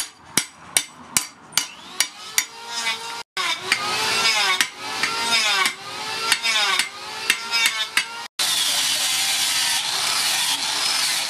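Hand hammer tapping a steel billhook blade down onto its long wooden handle, about two and a half blows a second, then a run of slower strokes with a wavering metallic ring. About eight seconds in, an angle grinder with a sanding disc cuts in and runs steadily against the wooden handle.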